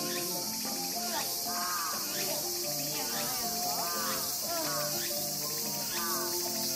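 Steady, unbroken high insect chorus, with distant people's voices faintly beneath it.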